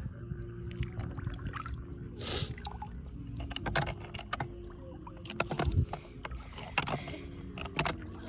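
Shallow lake water sloshing and splashing at the edge, with scattered small clicks and knocks.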